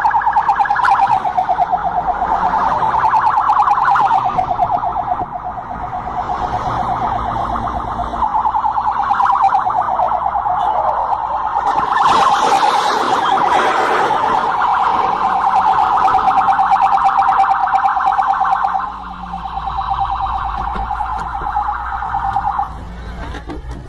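Police car siren sounding a fast warble that holds steady in pitch, with a crashing noise over it about halfway through as an SUV rolls onto its side. The siren cuts off near the end.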